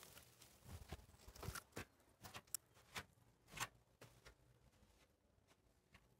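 Faint, irregular footsteps on sand and sandy steps, a dozen or so short scuffs and knocks, thinning out after about four seconds.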